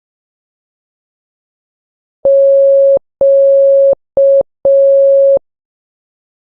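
Morse code practice tone sending the letter Q: dah-dah-dit-dah, four steady single-pitch beeps (long, long, short, long) starting a little over two seconds in.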